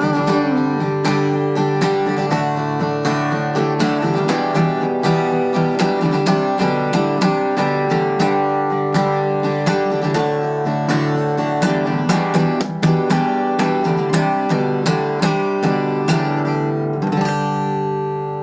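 Acoustic guitar strumming chords in a steady rhythm as the song's instrumental outro, ending on a final chord left ringing and fading near the end.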